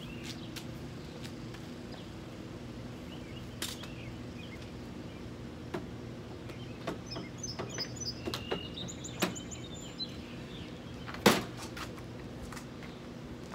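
Grass catcher bag being fitted onto the back of a Honda HRX217 lawn mower: scattered light clicks and knocks as the bag frame is set into place, then one louder knock about eleven seconds in. Birds chirp and a steady low hum runs underneath.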